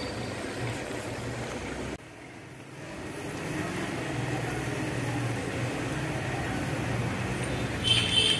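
Sesame-coated ariselu deep-frying in hot oil in a kadai, with a steady sizzle and bubbling over a low hum. Music comes in near the end.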